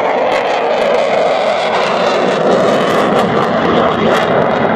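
Eurofighter Typhoon's twin Eurojet EJ200 jet engines running in flight, a loud, steady rushing roar.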